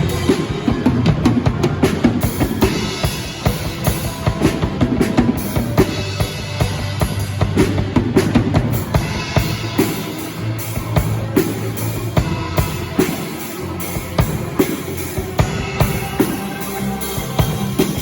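Live band rehearsing a worship song, the drum kit to the fore with steady kick and snare hits over a sustained bass line.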